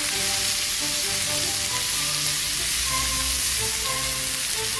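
Pork belly slices sizzling steadily on a hot griddle plate, a dense, even frying hiss.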